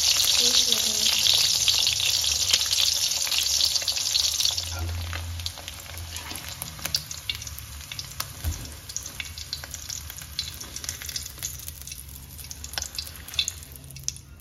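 An egg frying in hot oil in a wok, sizzling strongly for the first few seconds and quieter after about five seconds. After that, a metal spatula scrapes and taps against the wok as the fried egg is lifted out.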